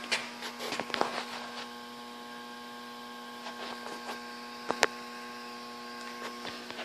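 Steady electrical hum of several fixed tones over a faint hiss, broken by a few short sharp clicks: one right at the start, one about a second in, and the loudest just before five seconds.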